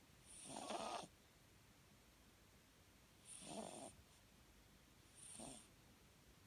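Papillon dog snoring in its sleep: three short snores about two seconds apart, the last the briefest.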